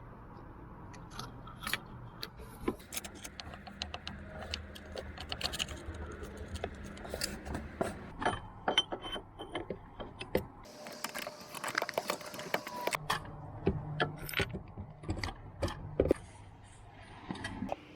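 Metal hand tools clicking and clinking as a 22 mm deep socket and wrench work the reverse light switch off the top of the transmission. The clicks are irregular and come thickest around the middle.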